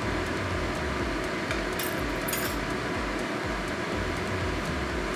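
Thin metal skewers clinking and scraping as they are worked through a piece of raw yellowtail, with two short scrapes about two seconds in.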